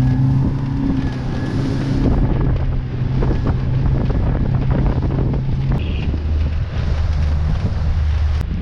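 Outboard motor of a small inflatable boat running steadily under way, with heavy wind buffeting the microphone. About six seconds in the engine hum drops to a lower note.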